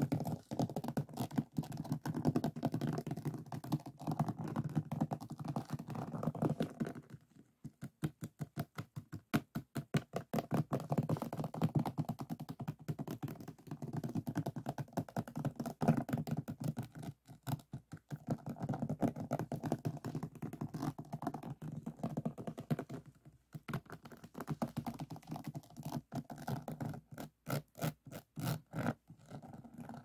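Fingers and nails rubbing and scratching across the faceted resin drills of a finished diamond painting, a dense crackly clicking. At several points it breaks into runs of separate quick taps, most clearly about a quarter of the way in and near the end.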